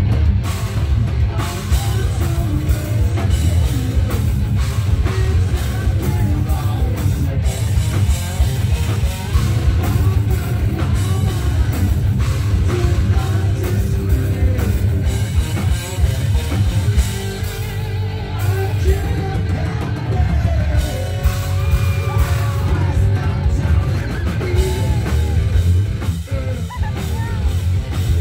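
Live hard rock band playing loud: distorted electric guitars, bass guitar and a drum kit, with a singer singing and yelling over them.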